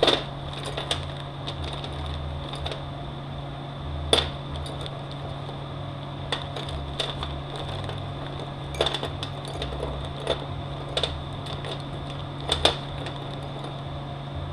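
Scattered sharp metallic clicks and clinks of steel bushing tools being handled against a transmission part, about eight in all, over a steady background hum.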